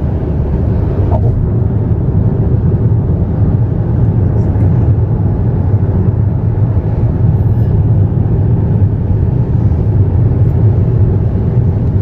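Steady low rumble of tyres and engine heard inside a car's cabin while it drives at road speed.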